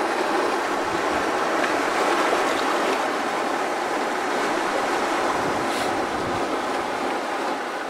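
Sea waves breaking and washing over a rocky shore: a steady rush of surf.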